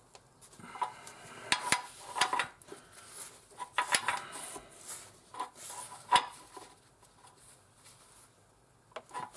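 Spanner clinking against the new sump drain plug as it is fitted and worked round to tighten the plug: a string of sharp metallic clinks, mostly in the first six seconds, with a couple more near the end.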